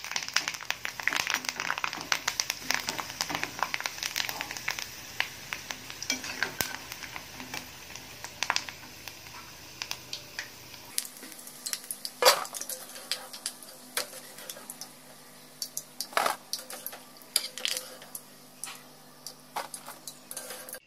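Cauliflower pieces and curry leaves deep-frying in hot oil in a kadai, sizzling and crackling while a metal slotted spoon stirs and scrapes the pan. About halfway through the sizzling drops away, leaving scattered sharp metal clinks and taps as the fried pieces are lifted out onto a steel plate.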